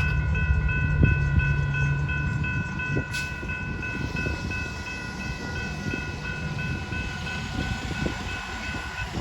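Railroad grade-crossing bell ringing rapidly and steadily over the low rumble of departing Metra trains. The rumble fades after a couple of seconds, a sharp click comes about three seconds in, and the bell stops just before the end.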